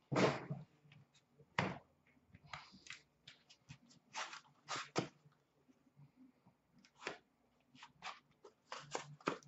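Scattered short rustles, clicks and scrapes of hands opening an Upper Deck The Cup hockey card box and handling its packaging, about a dozen irregular strokes.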